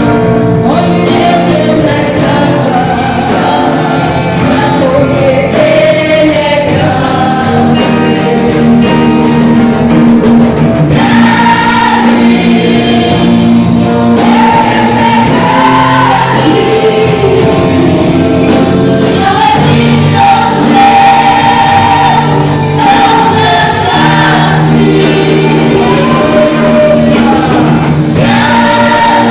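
Gospel choir singing a worship song with instrumental accompaniment.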